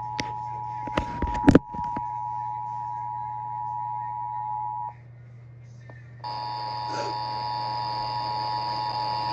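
Emergency Alert System two-tone attention signal, the steady 853 and 960 Hz pair. A few sharp knocks break in about a second in; the tone cuts out about five seconds in and comes back about a second later with added hiss and a higher tone over it.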